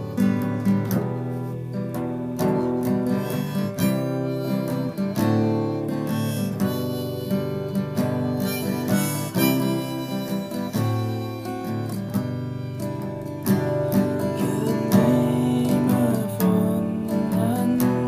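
Acoustic guitar being picked and strummed while a harmonica plays held melody notes over it.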